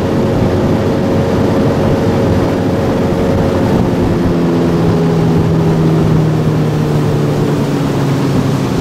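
Outboard motor pushing an aluminium river boat along, running steadily under a constant rushing noise; its pitch eases lower in the second half as it throttles back.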